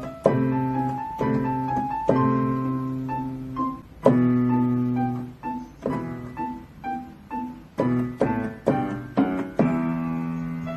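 Solo piano music: a slow melody of single notes over held low chords, each note fading after it is struck, with a run of quicker notes near the end.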